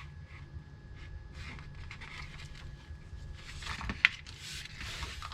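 Soft handling and scraping noises as a wire is fed through a plastic skeleton bird's body, with one sharp click about four seconds in.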